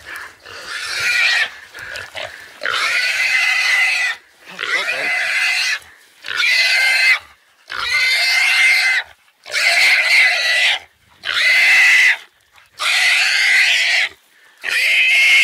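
Feral pig squealing loudly while held by pig dogs and a hunter: a long series of drawn-out shrill squeals, each about a second long, with short breaths between them.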